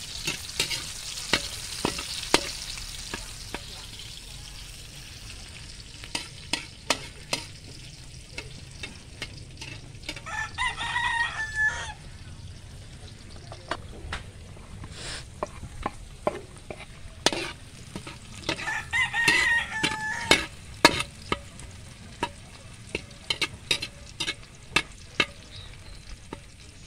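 Metal ladle scraping and knocking against a large aluminium wok as chopped garlic and onion fry, with a light sizzle that is strongest in the first few seconds. A rooster crows twice, about ten and nineteen seconds in.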